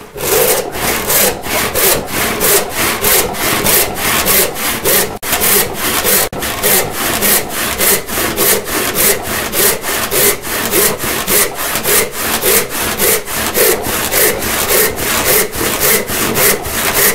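Hand saw ripping lengthwise down through an oak board to resaw it, in steady, even strokes about three a second.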